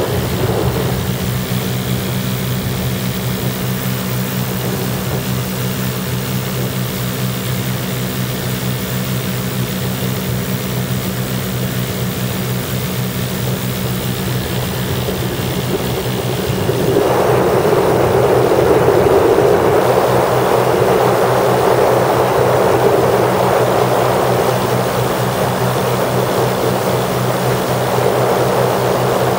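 Engines and propellers of a Lazair twin-engine ultralight droning steadily in flight, heard from the open cockpit. A little over halfway through, a louder rushing noise of wind comes in over the drone and stays.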